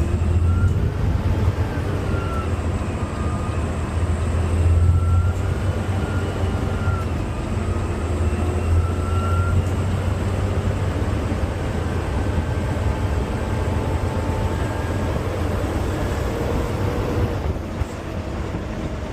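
Automated side-loader garbage truck driving: diesel engine running with a heavy low rumble, and drivetrain whines rising and falling in pitch as it changes speed. The level drops slightly near the end.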